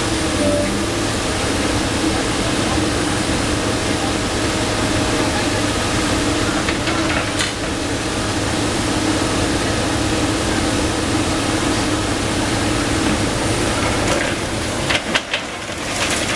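Komatsu PC290 NLC excavator's diesel engine running steadily under hydraulic work, with a few short knocks of demolition debris about seven seconds in and again near the end.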